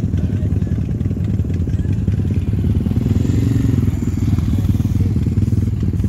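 Custom big-wheel bagger motorcycle doing a burnout, its engine held at high revs in a loud, fast-pulsing drone that swells a little about halfway through.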